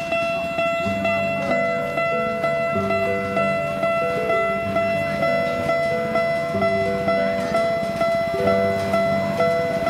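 Background music on piano or keyboard, with a high note repeated about twice a second over a moving melody and bass line.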